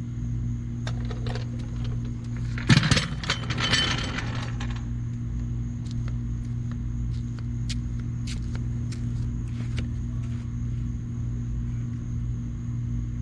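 Metal clanking and rattling for about two seconds, starting about three seconds in, as the jack and jack stand are pulled out from under the truck, with a few lighter clicks later. A steady low hum runs underneath throughout.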